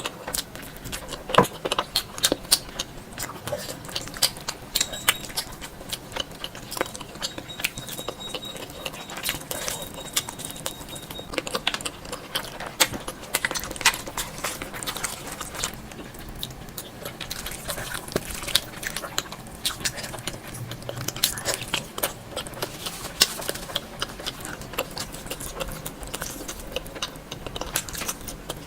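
Close-miked eating sounds: a person chewing, with an irregular stream of quick wet mouth clicks and smacks.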